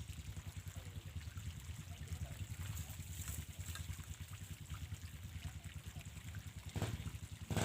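A small engine running steadily with a fast, low, even putter, swelling briefly near the end.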